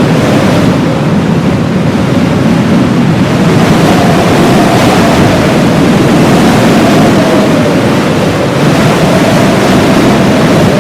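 Heavy blizzard wind blowing as a loud, steady rush, with a faint wavering whistle running through it.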